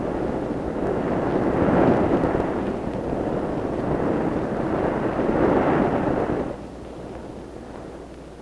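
Roar of rushing white-water rapids, a loud steady noise that swells twice and then drops off sharply about six and a half seconds in.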